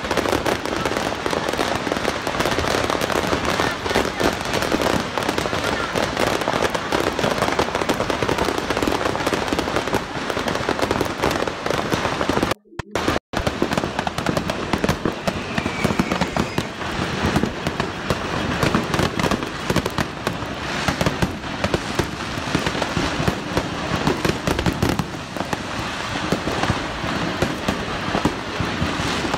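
Fireworks going off in a dense, continuous barrage of crackling and rapid bangs, with ground-level bursts and aerial shells together. The sound cuts out for about a second a little before halfway, then the crackling carries on.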